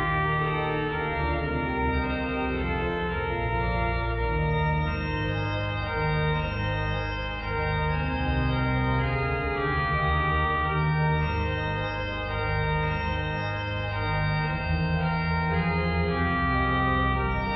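Three-manual church organ playing an improvisation: full sustained chords that shift every second or two, with a deep bass line beneath.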